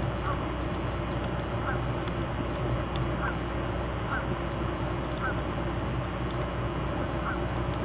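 Short animal calls, repeated about once a second, over a steady background noise with a low hum.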